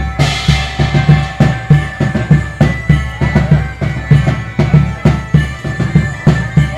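Live medieval-style band music: bagpipes playing a melody over a steady drone, driven by a regular drum beat, with a cymbal crash at the start.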